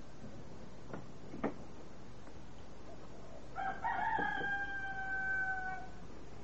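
A rooster crowing once, one long call of about two seconds that falls slightly in pitch at the end, starting about three and a half seconds in. A sharp click comes about a second and a half in.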